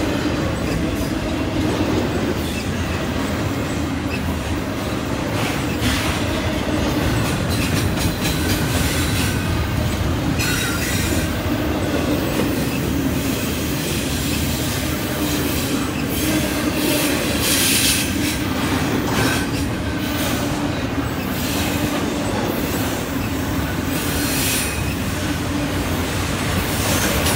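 Double-stack intermodal freight cars rolling past at close range: a steady rumble of steel wheels on rail with wheel clatter. Brief high-pitched wheel squeals come a few times.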